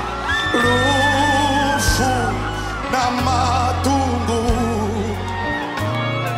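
A man sings a gospel worship song over a band, holding long notes with vibrato and sliding between phrases. Steady bass notes and drums with cymbals play underneath.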